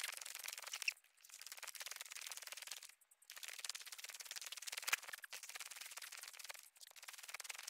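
Hiker's footsteps crunching and scuffing in snow on a steep trail, a dense crackle of small clicks that stops briefly about one and three seconds in.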